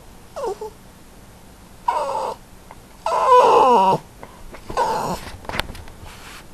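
A small dog whining in four pitched cries, the loudest and longest lasting about a second and falling in pitch at its end: the dog demanding to be fed.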